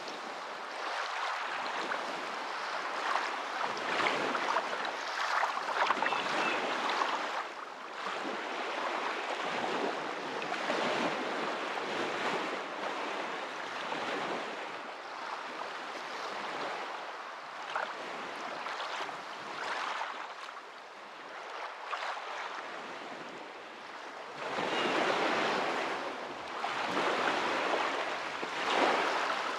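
Moving water making a continuous rushing, splashing noise that swells and eases every few seconds.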